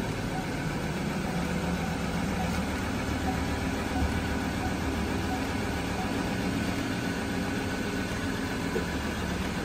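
Ford Ranger pickup's engine idling steadily, a constant low drone.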